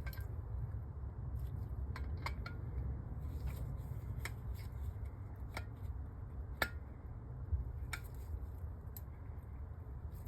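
Small metal carburettor parts clicking and ticking as they are handled and fitted by hand, about eight light clicks spread irregularly, over a steady low hum.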